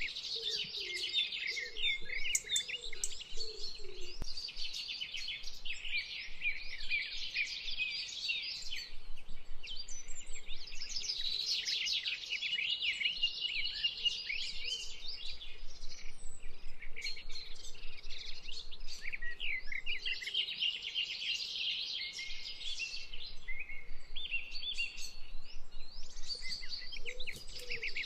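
A dense, continuous chorus of small songbirds chirping and twittering, with a lower wavering call at the start and again near the end.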